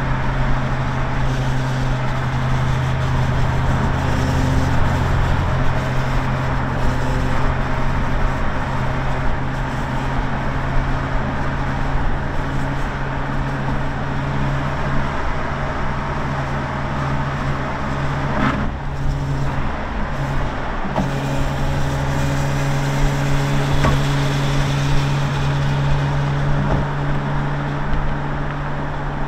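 Jaguar F-Type R's supercharged V8 running at a steady cruise, its exhaust note mixed with wind and road noise in the open-top cabin. About two-thirds of the way through, the engine note breaks off for a couple of seconds, then comes back steady.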